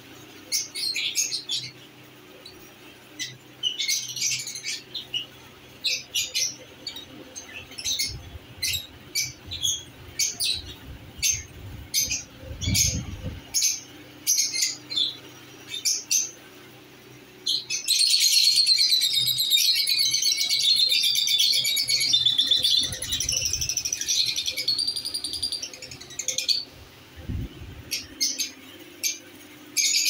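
Lovebirds chirping in a cage: a string of short, sharp, high chirps, then for several seconds past the middle a dense continuous chatter of several birds calling at once, before single chirps return.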